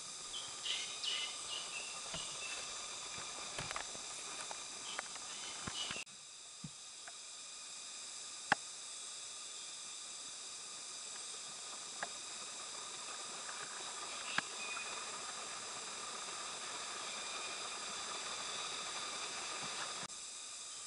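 Steady high insect chorus in tropical forest, a continuous buzzing drone at several pitches. Short clicks and crackles during the first six seconds, and a single sharp click about eight seconds in, the loudest sound.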